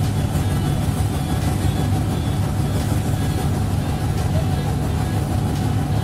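Steady low drone of a boat engine, running evenly, heard over choppy water.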